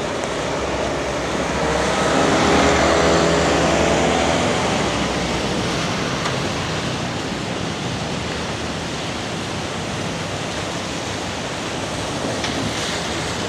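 Steady hiss of rain and tyres on a wet city street, with a city bus's engine swelling and fading about two to four seconds in.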